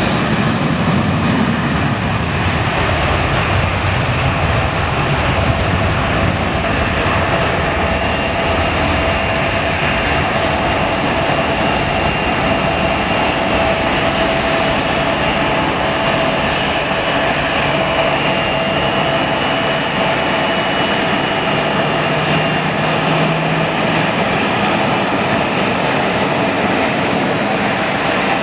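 Boeing 777-300's twin Rolls-Royce Trent jet engines at take-off thrust, a loud steady roar as the airliner accelerates down the runway and climbs away. A low rumble is strongest in the first few seconds, and a steady high whine rises above the roar from about a quarter of the way through.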